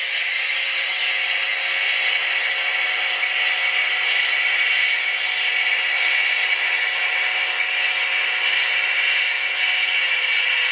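Model-railroad sound decoder playing a GE AC4400CW diesel locomotive's engine sound through a small speaker, running steadily without change. It sounds thin, with almost no bass.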